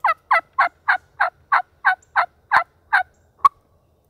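A series of about a dozen loud turkey yelps, roughly three a second, each note dropping in pitch, ending with one short sharp note.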